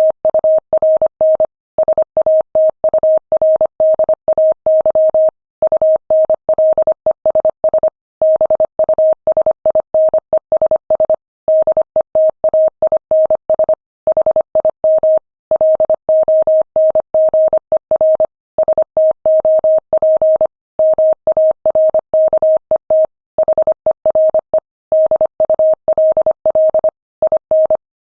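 Morse code sent at 25 words per minute: a single mid-pitched tone keyed rapidly on and off in dots and dashes, with short silent gaps between words.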